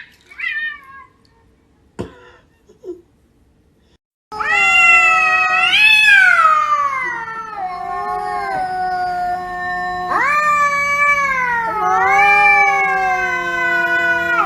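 Cat yowling: a few short calls and a tap, then from about four seconds in long, drawn-out wavering howls that rise and sink in pitch, starting afresh twice. This is the threat yowl of a cat squaring up to fight.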